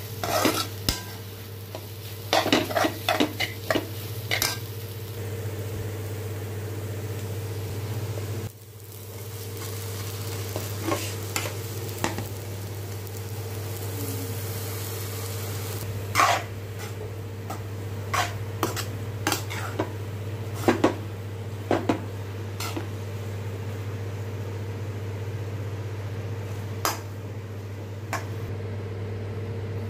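A steel ladle stirring and tossing scrambled egg and rice vermicelli in a pan, with its edge knocking and scraping against the pan in scattered clusters, over a steady low hum and light frying.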